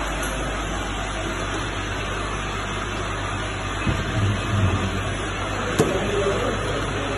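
Bottle filling and capping line machinery running with a steady mechanical hum. There are a few short knocks around the middle and one sharp click near the end.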